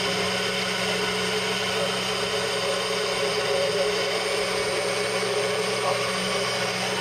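Bullet-style personal blender motor running steadily under a pressed-down cup, blending a green liquid mix, with an even hum and whine that holds constant throughout.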